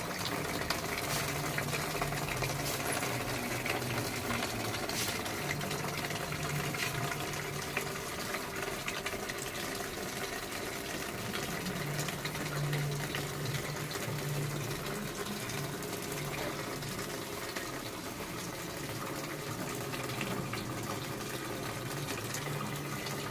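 Garden water fountain running: water falling and splashing steadily, with a low hum underneath.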